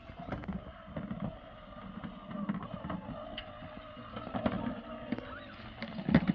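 Small battery motor of a Zhu Zhu Aquarium toy fish whirring steadily as it drives a plastic bubble ball rolling across carpet, with a low rumble and a few light knocks. A louder knock comes near the end.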